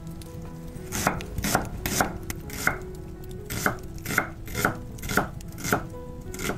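Chef's knife slicing a white onion on a wooden cutting board: about ten cuts, roughly two a second, starting about a second in.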